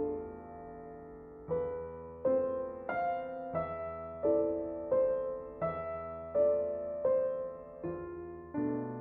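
Slow, gentle piano music: notes and chords struck a little more than once a second, each ringing and fading before the next.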